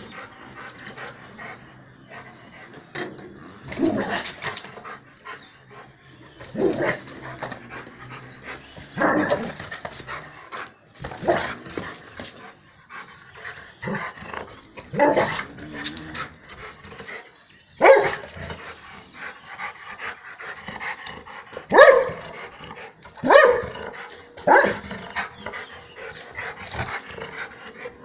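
A Rottweiler barking at a snake: about a dozen single barks spaced a couple of seconds apart.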